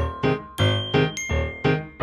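Background music: a bright keyboard-style tune with a low bass note on each beat.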